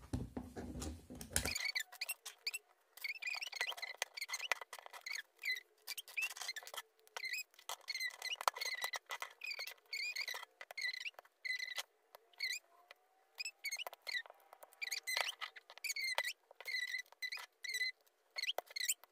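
Fast-forwarded sound of Lego bricks being handled and snapped together: a rapid, irregular run of small clicks mixed with high, squeaky chirps.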